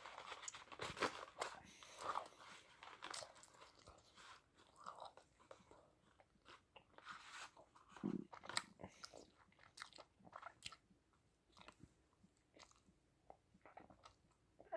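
Chewing gum being chewed close to the microphone: irregular wet smacks and clicks of the mouth. They come thick and fast at first and thin out in the second half.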